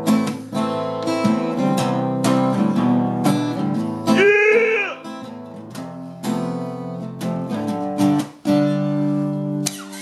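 Acoustic guitar strummed in chords, stroke after stroke with the chords changing. About four seconds in, a short gliding voice note sounds over it.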